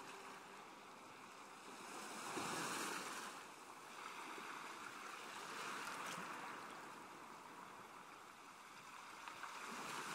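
Soft rushing sea-water ambience, swelling and fading three times like slow surges of surf.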